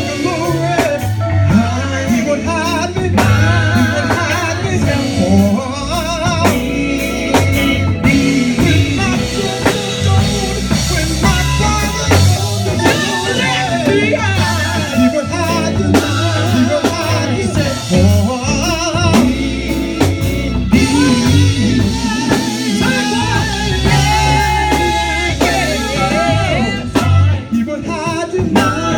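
Live gospel music: singing over a band with drum kit, bass and guitar.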